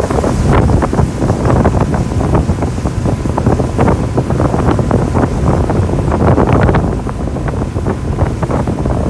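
Wind buffeting the microphone on a moving tow boat, over the steady drone of the boat's engine and the rush of its churning wake.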